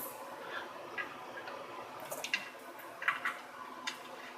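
A few irregular light clicks and taps of metal tubing and fittings being handled as the lines are refitted to an air compressor's check valve.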